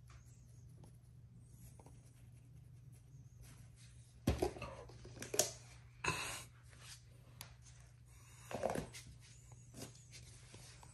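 Thin plastic pot and clear plastic tub being handled: a few short scrapes, crinkles and knocks of plastic, the loudest about four seconds in, near six seconds and near nine seconds, over a faint steady room hum.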